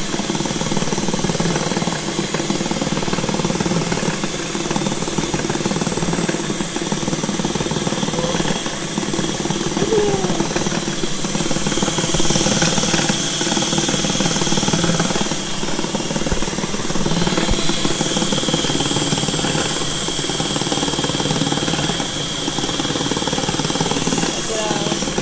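Electric stand mixer running steadily, its twin beaters whipping aquafaba (chickpea water) into stiff meringue-like fluff as guar gum is added. The whirring cuts off abruptly at the very end.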